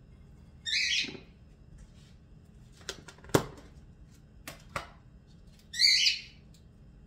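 Seasoning shaken from a container over a bowl of chicken thighs: two short rattling bursts about five seconds apart. In between come several sharp knocks of containers set down on the counter.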